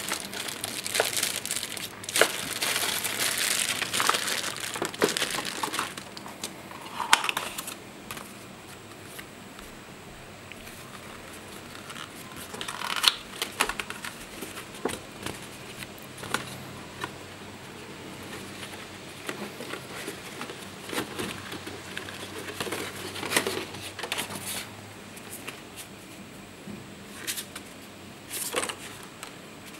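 Keyboard packaging being handled and opened: plastic wrap crinkling and rustling, busiest for the first several seconds, then scattered rustles and light knocks.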